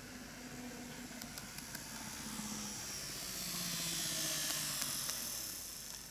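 KATO N-gauge model of an EF81 300 electric locomotive running past: motor whine and wheels rolling on the track, growing louder to a peak as it passes close about four seconds in, then fading. The whine drops in pitch as it goes by, with a few light clicks along the way.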